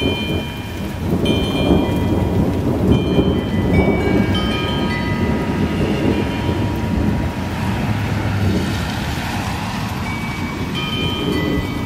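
Thunder rumbling and rolling for several seconds, loudest early on and fading near the end, over the steady hiss of rain falling on pavement. Short high steady tones sound now and then over it.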